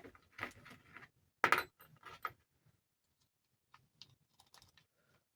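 Small plastic and metal model-wagon parts being handled and fitted: a series of light clicks and taps, the sharpest about one and a half seconds in.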